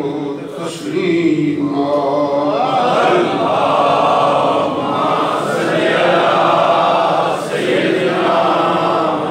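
A man's voice chanting a melodic Quran recitation in Arabic, with long held, wavering notes, amplified through a microphone.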